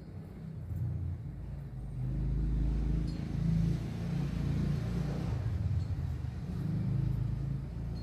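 Low engine rumble with a swell of road noise that rises and fades across the middle: a motor vehicle passing by.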